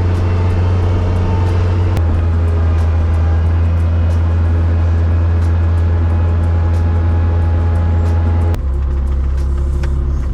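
Engine of a snow-plowing machine running steadily, heard close, its note dropping a little and getting slightly quieter near the end.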